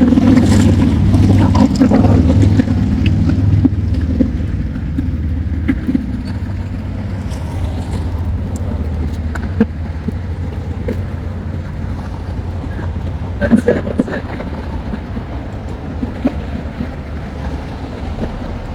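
Steady low rumble of a running vehicle engine, louder in the first few seconds, with a few scattered clicks and knocks.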